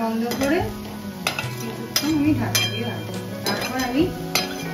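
Flat metal spatula stirring and scraping a thick mashed radish mixture against a metal wok, in several separate strokes.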